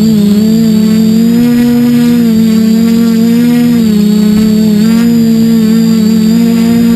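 Quadcopter's electric motors and propellers humming loudly, heard up close through the onboard GoPro, with several rotor tones wavering up and down in pitch as the motor speeds keep shifting in flight, over a thin high motor whine.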